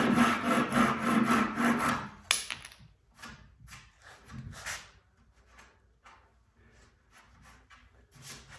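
Hand saw cutting wood in quick, even strokes, about four a second, that stop about two seconds in. Then comes a sharp click, and faint scattered handling and rubbing sounds follow.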